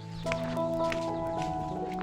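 Background music: an instrumental stretch of a Bengali song, with sustained chords that change twice and a light ticking beat.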